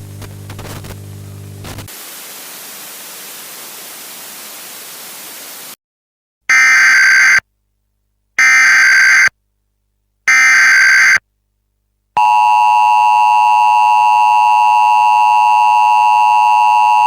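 A low electrical hum, then a few seconds of static hiss. Then three one-second bursts of Emergency Alert System SAME header data, screechy digital tones with a second of silence between each. About twelve seconds in, the steady, loud EAS attention tone starts and holds.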